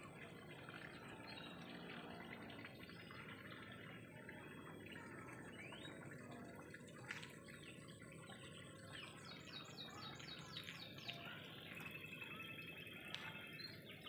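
Faint outdoor background with scattered small bird chirps and a quick run of rapid ticking notes about nine to eleven seconds in. There is a single sharp click about seven seconds in.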